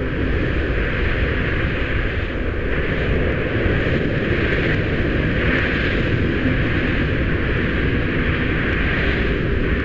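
Hurricane-force wind blowing steadily: a deep rumble with a hiss over it, swelling a little midway.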